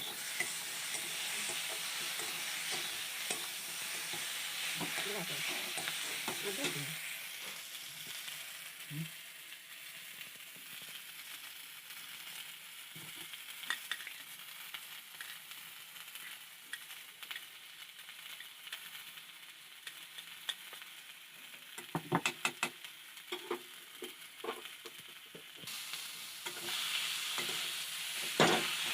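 Food frying in oil in a pan with a steady sizzle while it is stirred, louder for the first several seconds and again near the end. A quick run of sharp metal knocks of the spoon against the pan comes about 22 seconds in, and another near the end.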